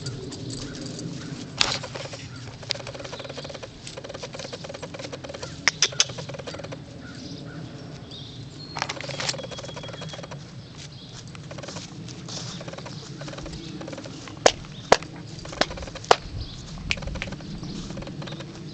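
Steady outdoor background noise with a scattering of short, sharp clicks and snaps, a few in quick pairs about two-thirds of the way through.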